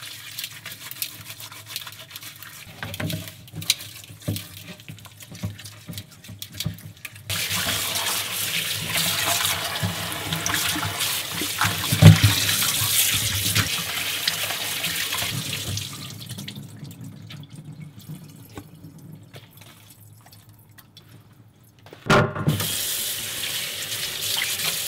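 Kitchen tap water running into a stainless steel sink while squid is rinsed in a metal bowl, after a stretch of wet rubbing and handling sounds from squid being scrubbed with salt. The running water starts about a third of the way in and dies away after the middle, with a single loud knock near the middle, then comes back suddenly near the end.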